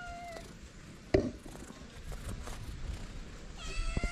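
Street cats meowing: a short meow at the very start and a longer, level meow near the end from a calico cat, with a single sharp knock about a second in.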